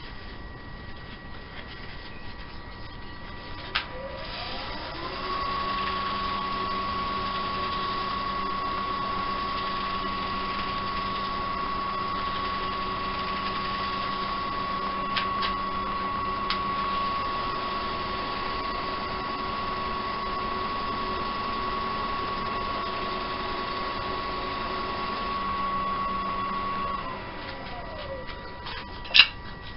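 Woodturning lathe motor whine rising in pitch as it spins up about four seconds in, running steadily at speed for over twenty seconds, then falling as it winds down near the end, followed by a few sharp clicks.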